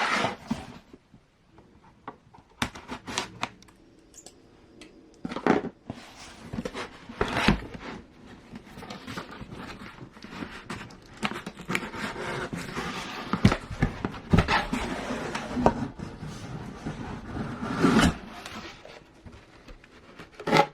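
A cardboard box being opened and its packaging handled: irregular scrapes, clicks and rustling, sparse at first and busier in the second half.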